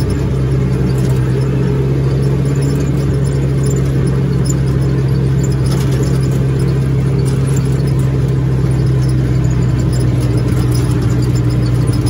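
ATV engine running at a steady, even pitch while the vehicle drives along a dirt road.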